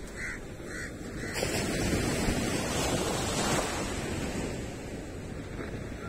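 Small waves on a calm sea breaking and washing up a sandy beach. The wash swells to its loudest about a second and a half in, then eases off. Two short bird calls come near the start.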